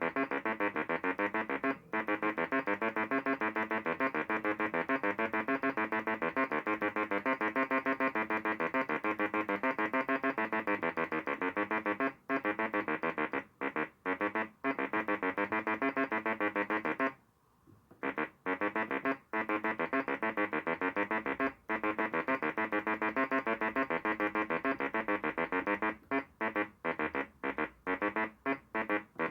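Homemade analog synthesizer driven by its DIY step sequencer, playing a fast repeating pattern of short electronic notes that step through changing pitches. The pattern breaks off for about a second about two-thirds of the way through, then carries on.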